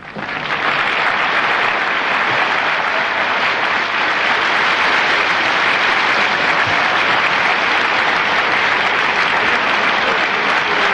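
Large audience applauding, breaking out suddenly and then holding steady.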